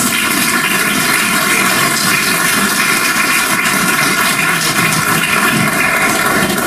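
Audience applauding: many people clapping together at an even level.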